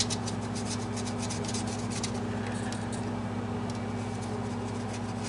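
Small brush dabbing and scratching along the binding gap of an acoustic guitar's top, a run of light quick ticks that thins out after about three seconds, working cleaning solution into the wood before regluing. A steady low hum sits underneath.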